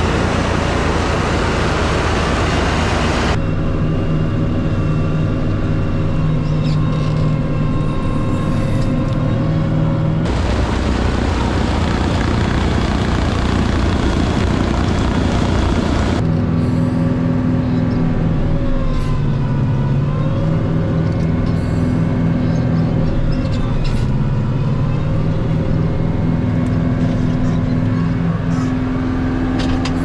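A tractor's engine runs at PTO speed, driving a rear-mounted Farm King snowblower through heavy, wet snow. Its steady drone sags in pitch and recovers a few times as the blower takes on the heavy snow and drags on the engine. A rushing noise rides over it in some stretches and drops away in others.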